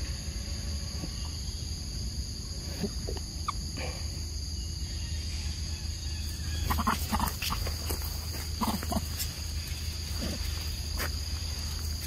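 Young macaques feeding on a ripe mango, making short sharp mouth sounds that cluster about seven seconds in and again about nine seconds in. Insects drone steadily at a high pitch behind them.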